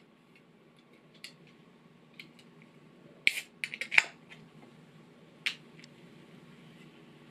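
Clicks and sharp snaps of an aluminium drink can's pull tab being worked and cracked open, loudest in a quick cluster a little past three seconds in, with a single further click about five and a half seconds in.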